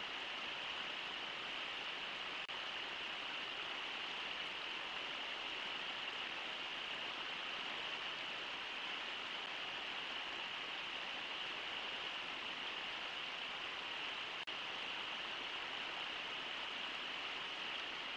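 Steady rushing of the Brooks River's flowing water, an even hiss that holds unchanged throughout.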